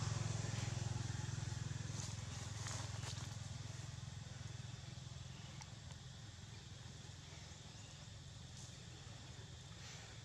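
Low, steady hum of a vehicle engine running, fading gradually as it dies away.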